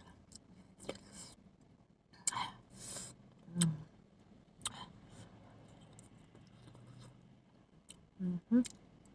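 Scattered soft clicks and rustles of a takeout curry chicken meal being handled, with a couple of brief rustling bursts about two to three seconds in. Short low murmured vocal sounds come about three and a half seconds in and again near the end.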